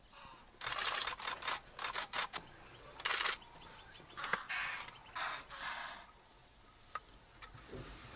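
Lion handling and dragging an antelope kill through dry grass: a quick run of rustling, scraping noises that dies down after about six seconds.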